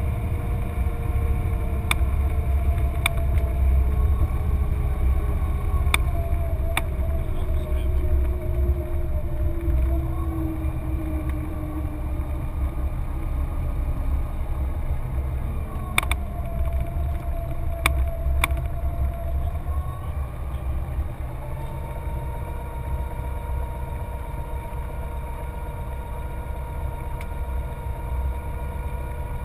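Cessna 182's piston engine idling and its propeller turning, heard inside the cockpit during the landing rollout and taxi, a steady low drone with some slowly sliding tones. A few sharp clicks come through, and the sound settles a little lower about two-thirds of the way in.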